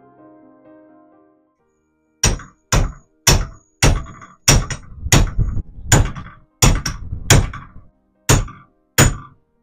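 Piano background music fades out, then about eleven sharp hammer blows with a short metallic ring, struck on a block held against a metal part clamped in a bench vise.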